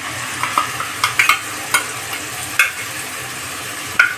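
Ground masala paste frying in hot mustard oil in a kadhai: a steady sizzle, broken by a handful of sharp taps and pops as the paste is scraped in with a wooden spatula.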